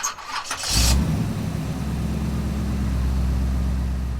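Pickup truck engine starting: a few clicks, then a short loud burst as it catches under a second in, settling into a steady low idle.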